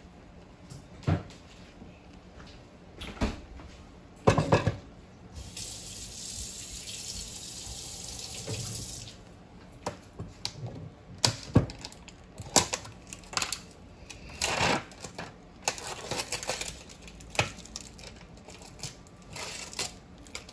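Kitchen handling sounds: a few sharp knocks and clatters, then a tap running for about four seconds, then a string of short clicks and knocks.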